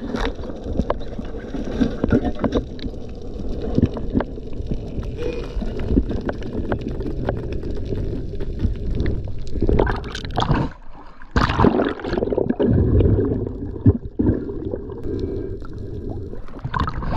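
Underwater noise at a freediver's camera housing as he swims up toward the surface: water rushing and gurgling past the housing, with many scattered knocks and clicks.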